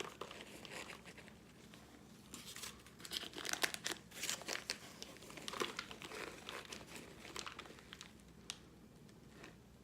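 Crinkling and crackling as a cardboard box of microwaved cornstarch chunks is handled and pulled apart, coming in two main bursts of rustling crackles.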